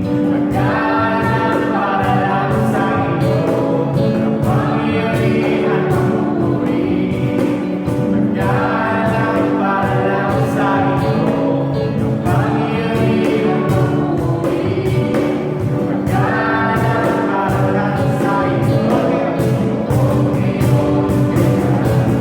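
Christian worship song: group singing over a band with a steady beat.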